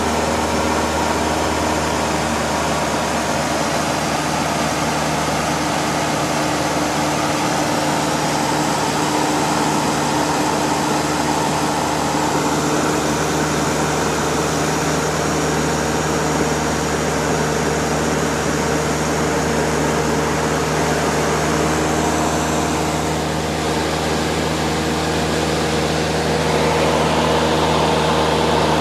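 Cessna 152's four-cylinder Lycoming piston engine and propeller droning steadily in cruise flight, heard inside the cabin with airflow noise. The pitch shifts slightly about three-quarters of the way through, and the drone grows a little louder near the end.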